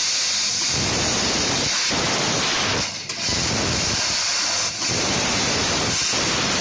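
Laser cutting machine cutting 3 mm brass: a loud, steady hiss of the assist-gas jet at the cutting head. It drops out briefly twice, about three seconds in and just before five seconds.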